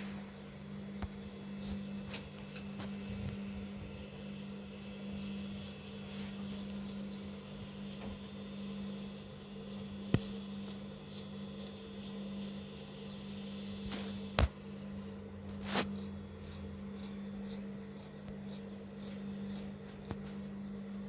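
Tailor's scissors cutting cloth: scattered snips and rustling of fabric, with a few sharper clicks about ten seconds in and again around fourteen to sixteen seconds, over a steady low hum.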